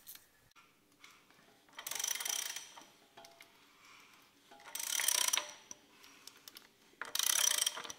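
Socket ratchet clicking in three short bursts of under a second each, as bolts are run down on the engine's bottom end.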